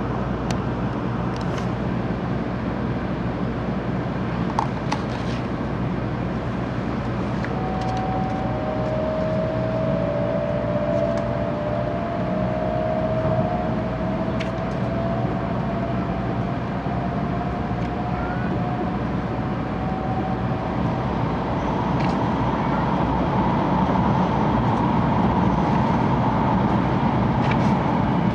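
Cabin running noise of a JR West 700 Series 7000 (Railstar) shinkansen at speed, heard inside the passenger car: a steady rumble and hiss with faint ticks. A faint whine rises slowly in pitch through the middle, and the noise grows a little louder near the end.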